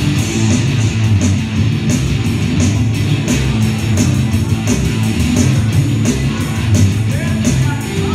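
Live rock band playing: electric guitars, bass guitar and drum kit, loud and steady, with a cymbal struck on an even beat.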